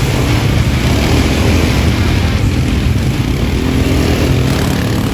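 Quad bike (ATV) engine running steadily, with a loud low rumble.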